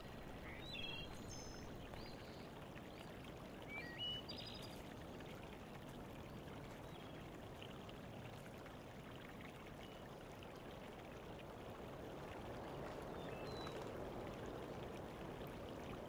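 Garden stream or small cascade running into a pond: a steady, even rush of water that grows a little louder near the end. A few short high chirps sound over it, the loudest about four seconds in.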